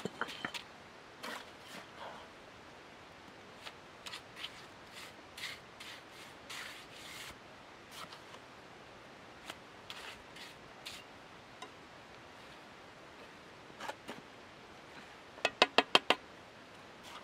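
Steel bricklaying trowel scraping and spreading wet mortar over brick and stone in short strokes. Near the end, a quick run of about five sharp taps as a brick is knocked down into its mortar bed.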